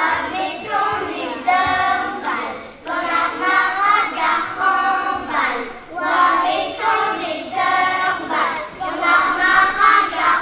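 A group of young children singing together in Breton, a traditional an dro song, in short phrases with brief breaths between them.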